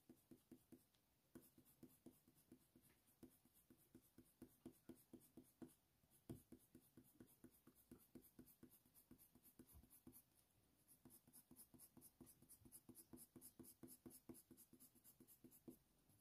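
Faint scratching of an oil-based coloured pencil (Faber-Castell Polychromos) pressed hard on hot-press watercolour paper, in short quick strokes that grow denser over the last five seconds.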